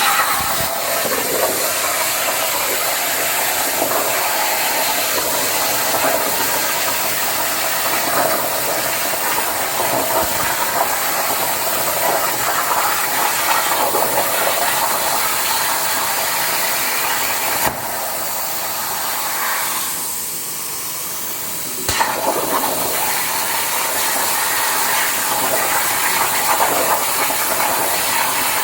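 CNC plasma cutter's torch cutting metal: a loud, steady hiss that starts abruptly, drops back for about four seconds past the middle, then comes on sharply again.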